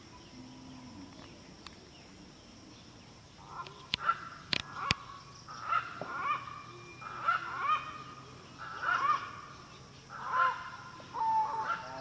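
A bird calling over and over, from about three and a half seconds in, one call roughly every second and a half. Two sharp snaps come near the start of the calling.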